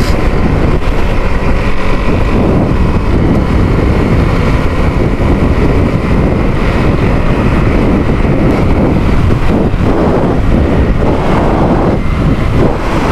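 Heavy wind buffeting the microphone of a moving motorcycle, with the engine running underneath at riding speed.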